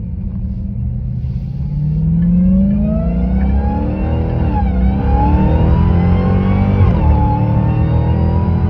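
Supercharged 6.2-litre HEMI V8 of a 2017 Dodge Charger SRT Hellcat accelerating through the gears, heard from inside the cabin. Its pitch climbs, drops at two upshifts about four and a half and seven seconds in, then climbs again, with supercharger whine riding over the engine note.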